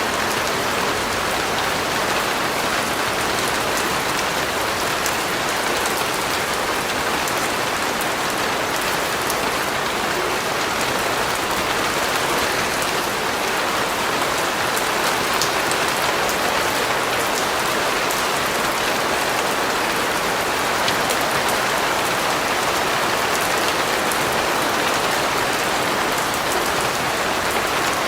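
Steady rain falling on a surface, an even hiss with scattered fine drop ticks.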